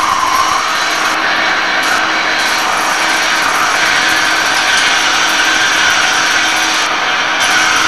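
Hegenscheid 105 underfloor wheelset lathe turning a railway wheel: a steady metal-cutting noise with a wavering high whine that rises slightly over the first few seconds, over a low steady hum.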